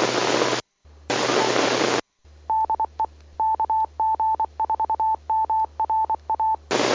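Two bursts of radio static hiss as transmissions drop, then a single steady tone keyed on and off in short and long pulses for about four seconds: a ham radio repeater's Morse code station identifier. A brief burst of static ends it.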